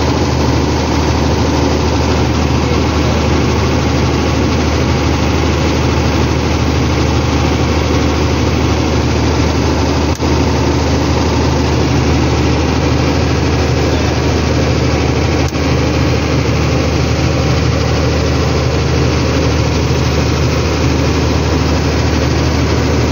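Generator engine running steadily at a constant speed, a loud low hum under a broad engine clatter.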